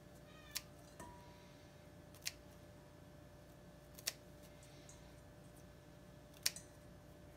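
Kitchen scissors snipping broccoli florets in a stainless steel bowl: four sharp snips, one every second or two, over a faint steady hum.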